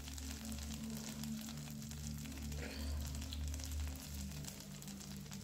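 Cumin seeds, ginger and chopped capsicum frying in hot oil in a stainless steel pan, with a fine, steady sizzle and crackle over a steady low hum.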